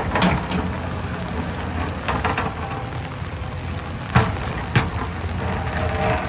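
Hyundai tracked excavator's diesel engine running steadily while rocks knock and clatter against its steel bucket, with several sharp knocks, the loudest about four seconds in.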